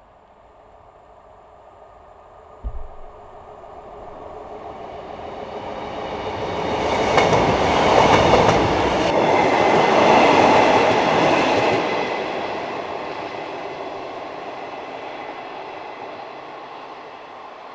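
British Rail Class 150 Sprinter diesel multiple unit passing at slow speed under a temporary speed restriction: its underfloor diesel engines and wheels on the rails grow louder as it approaches, are loudest for about five seconds as it passes, then fade away with wheel clicks over the rail joints. A short low thump comes about three seconds in.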